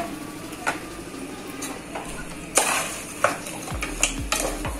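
Steel spoon stirring in an aluminium pressure cooker, scraping and knocking against the pot now and then; the loudest knock comes about two and a half seconds in, with more in quick succession near the end.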